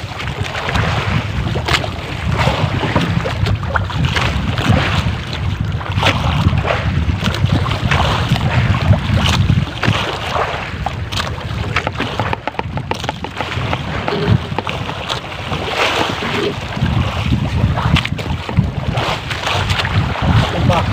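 Wind buffeting the microphone and water sloshing against the hull of a small wooden outrigger boat, a steady low rumble with frequent short knocks throughout.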